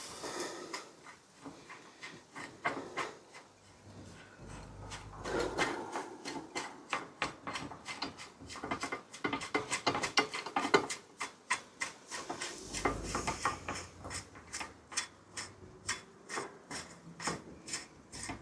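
Clicks and scraping of metal parts being worked while dismantling an old bicycle's headset, with a quicker run of clicks, about three or four a second, in the second half.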